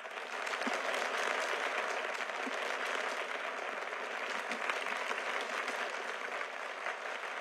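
A large audience applauding: dense clapping breaks out suddenly and holds steady, easing off slightly near the end.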